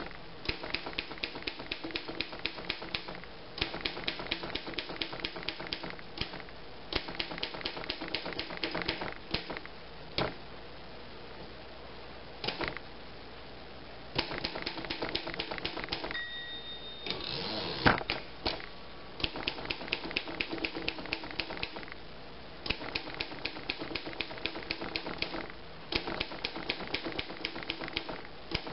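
A 1929 Underwood No. 5 manual typewriter being typed, its keys striking in quick runs of clacks with short pauses between them. About two-thirds of the way through, a brief bell-like ring is followed by a louder sliding clatter, typical of the margin bell and a carriage return.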